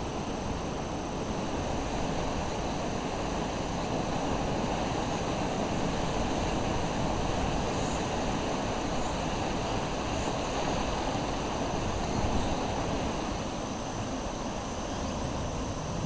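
Steady rushing of a flood-swollen river running high and fast after a typhoon.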